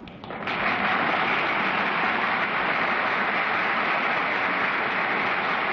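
Studio audience applauding, rising about half a second in and then holding steady.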